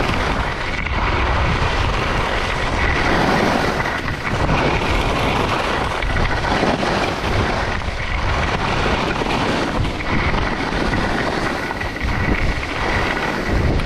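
Wind rushing over the microphone of a camera worn by a downhill skier, mixed with skis sliding and scraping on packed snow.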